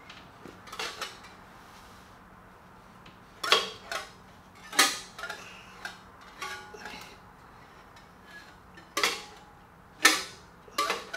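Irregular sharp metallic clinks and clicks, about eight of them, the loudest about a third of the way in, near the middle and near the end. They come from a wrench on the harmonic balancer bolt as a big-block Chevy engine is turned over by hand toward top dead center.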